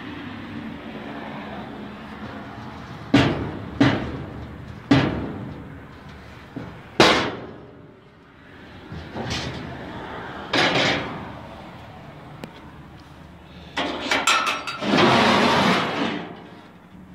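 Doors, lids and shelves of a steel barbecue smoker being opened and shut: about six sharp metal clanks and bangs, then a quick rattle of hits and a longer metallic scraping near the end.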